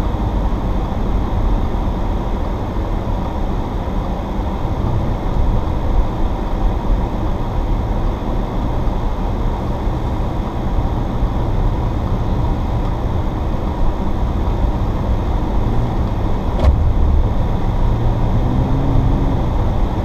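Steady engine drone and tyre noise heard from inside the cabin of a supercharged Audi S4 (3.0-litre V6) as it drives on a snow-covered road. The engine note stands out more briefly near the end.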